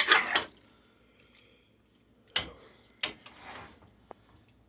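Kitchen cookware and utensils clattering and knocking: a burst of clatter at the start, then two sharp knocks a little over halfway through, the second followed by a brief scrape.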